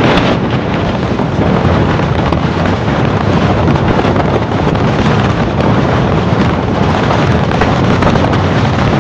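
Passenger train running at speed, heard from an open coach doorway: a loud, steady rumble of the coaches on the track with wind buffeting the microphone.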